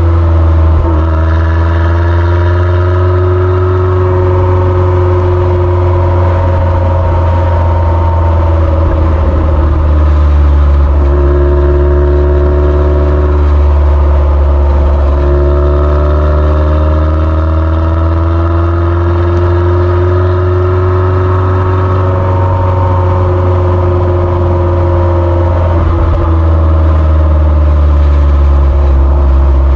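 MG TF's four-cylinder engine heard at the exhaust tailpipe while driving. The revs climb, hold and drop back a few times as the gears change, over a steady deep rumble.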